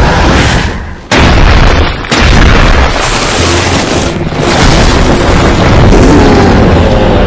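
Film fight-scene sound effects: heavy booms and rumbling impacts, loud throughout, with a sudden blast about a second in and another about two seconds in.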